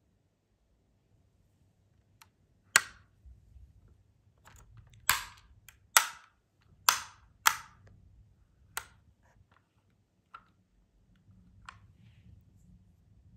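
Doors and hood of a diecast toy car being snapped shut by hand: about six sharp clicks a second or so apart, then a couple of fainter ones.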